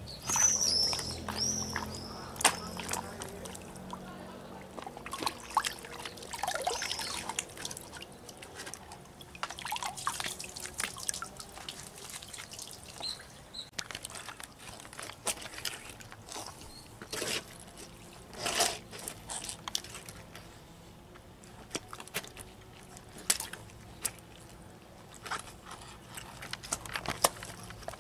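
Water sloshing, splashing and dripping from soaked wedge-heeled knee boots as they move in a tub of water and step out onto wet paving, with scattered squelching, splashing steps in the puddle.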